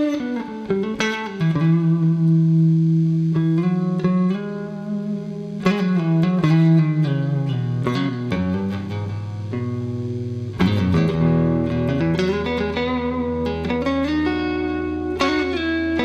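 1980 Gibson ES-335 TD semi-hollow electric guitar played through an amplifier: picked notes and chords that ring and sustain, with new chords struck about every five seconds and a low line stepping down in the middle.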